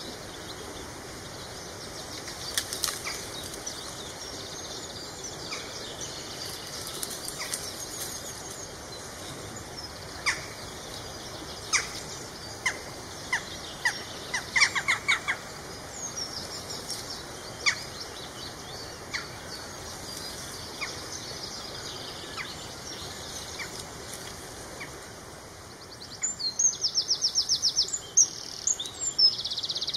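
Songbirds calling over a steady outdoor background, with sharp crackles and clicks of dry reed stems as a mute swan works the nest material with her bill, clustered in the middle. Near the end a small bird sings a fast run of repeated high notes.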